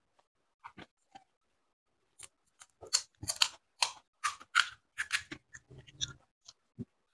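Crisp fried fuchka (pani puri) shells crackling and crunching as they are broken open and eaten. A few faint clicks at first, then from about two seconds in a quick, irregular run of sharp crackles.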